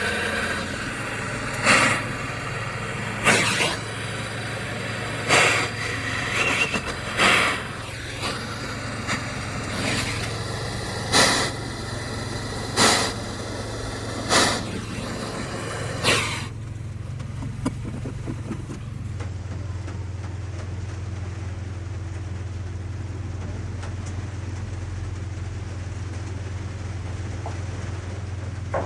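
Plumber's gas torch burning with a steady low rush while a copper pipe joint is soldered. In the first half, brief louder rushes of noise come every second or two, then only the steady low rush remains.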